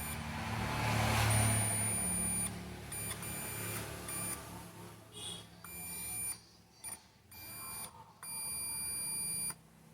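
Digital multimeter's continuity buzzer beeping in several stretches of uneven length, some over a second long, as the probes touch the legs of the TV power supply's switching power transistor. The steady beeps show a short across the transistor, which is fully shorted.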